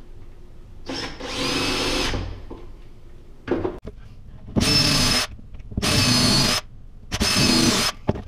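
DeWalt cordless drill run in four bursts of about a second each, with a brief blip between, its motor whining steadily while working into the plywood cabinet.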